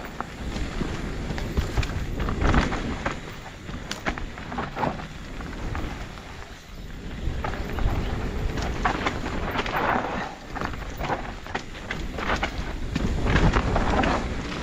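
Mountain bike riding down a dirt singletrack: tyres rolling over the trail surface, the bike rattling with frequent short knocks, and wind rushing over the camera microphone.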